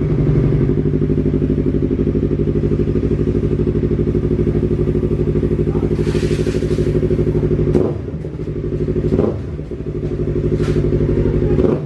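Yamaha MT-03's parallel-twin engine idling steadily through a new straight-through exhaust header with no pre-chamber. A few sharp clicks and knocks come in the last few seconds, and the engine sound briefly dips twice.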